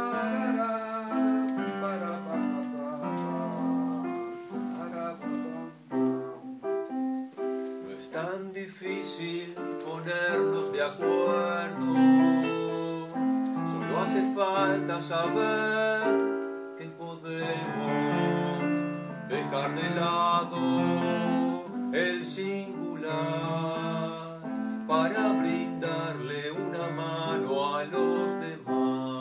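Instrumental passage of a choral song: a keyboard plays chords and melody, with singing voices coming in at times.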